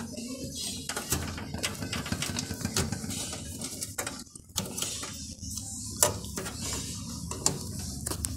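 Hands handling cables and parts inside a desktop computer case: rustling and scraping with scattered sharp clicks and knocks of plastic and metal.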